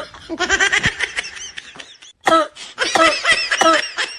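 Laughter: a long wavering laugh in the first second or so, then a run of short laughing bursts.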